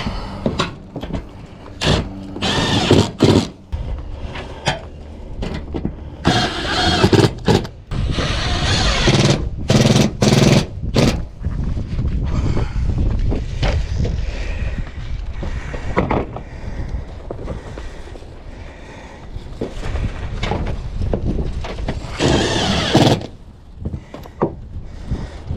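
Knocks, scrapes and short noisy bursts from work on a metal barn roof: the ridge cap being handled and screwed down, over a steady low rumble.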